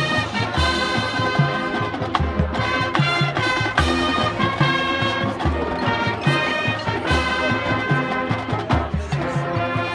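Marching band playing: brass chords with sousaphones on the bass line, driven by a steady beat of drums.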